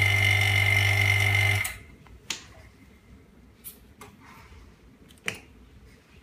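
Vacuum pump of an LCD separator machine running with a steady hum and a high whine, then cutting off suddenly about a second and a half in. A few light clicks of the screen and parts being handled follow.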